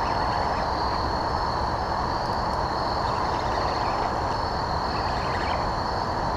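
Steady rush of running water pouring through a drainage grate underfoot.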